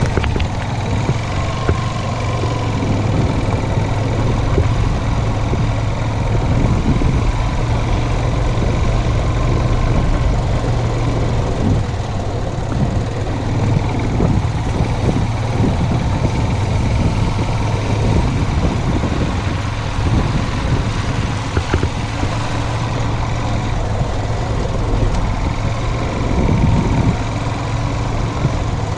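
Motorcycle engine running steadily under way, heard from a camera on the rider's helmet, with road and wind noise over it.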